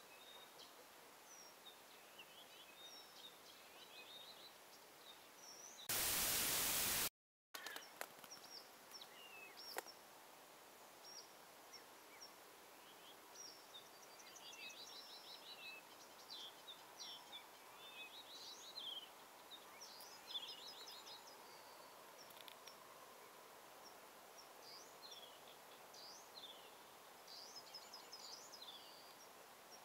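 Songbirds chirping and trilling in quiet riverside ambience, with several short rapid trills repeated through the middle and end. About six seconds in, a loud burst of hiss lasts about a second and is followed by a brief dropout to silence.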